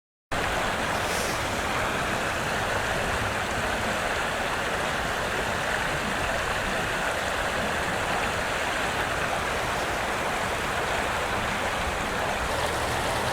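Flowing river water, a steady rushing with no change throughout.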